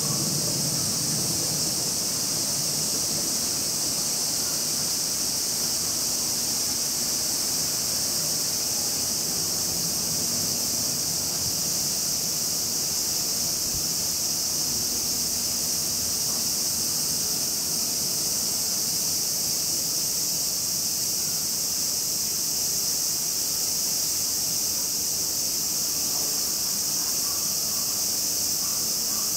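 Steady, high-pitched insect chorus, a continuous shrill buzz that does not change.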